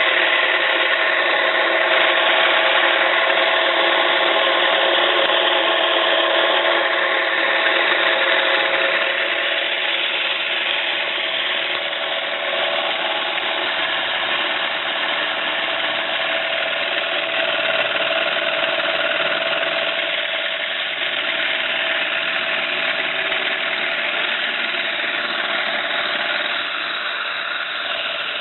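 1-inch scale live-steam Fowler ploughing engine model running steadily: an even hiss with a few faint held tones, a little louder in the first several seconds.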